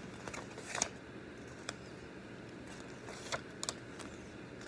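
Paper pages of a coloring book being turned and handled, giving several short rustles and flicks.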